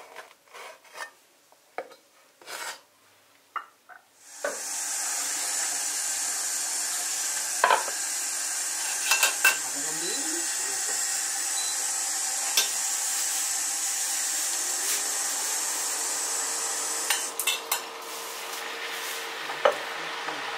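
A few light knocks, then food hitting a hot wok: loud, steady sizzling sets in suddenly about four seconds in, with a metal spatula clinking against the wok now and then as the food is stir-fried.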